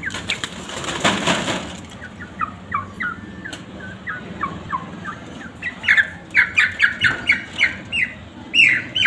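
Caged chickens calling with short, falling squawks, sparse at first, then louder and quicker, about three or four a second, through the second half. A rustling burst about a second in.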